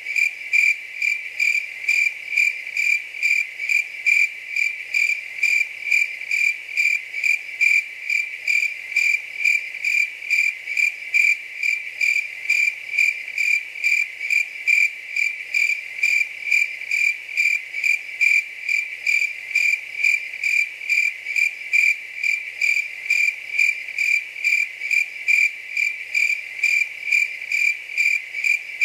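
Cricket chirping in an even, unbroken rhythm of high-pitched chirps, about two a second.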